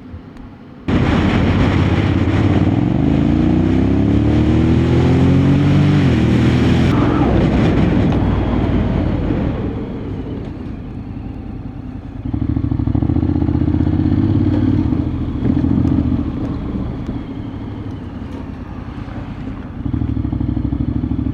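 Honda X-ADV 750's parallel-twin engine, heard from the bike while it is ridden. It comes in suddenly about a second in and rises in pitch as it accelerates, with wind noise. It then runs on steadily and gets louder again about halfway through.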